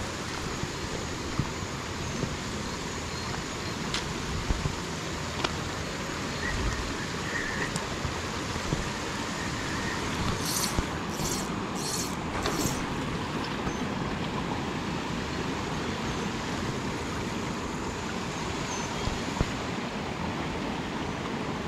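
Steady rushing of a shallow creek running over rocks, with a few light clicks and, about halfway through, four quick short hissing strokes.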